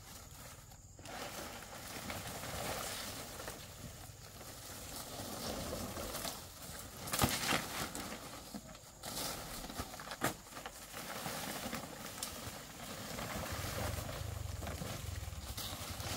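Large fan palm fronds rustling and scraping as they are handled and dragged through undergrowth, with steps on leaf litter and a couple of sharp cracks about seven and ten seconds in.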